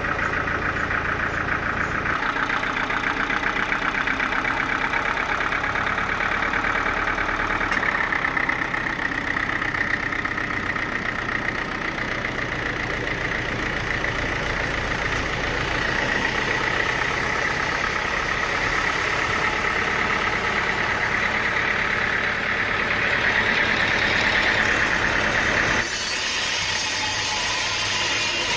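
Sawmill machinery running steadily with an engine-like drone. The sound shifts a couple of times, then changes abruptly near the end to a high hiss.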